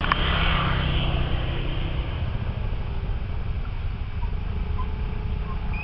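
Wind buffeting the camera microphone: a steady low rumble, with a brief hiss in the first second.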